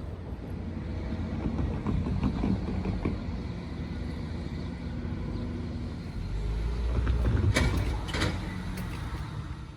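Road vehicle noise: a steady low rumble that swells about two-thirds of the way through, with two sharp knocks near the loudest part.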